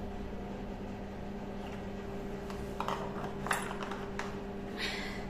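A few light clinks and knocks of kitchen utensils and dishes over a steady low hum.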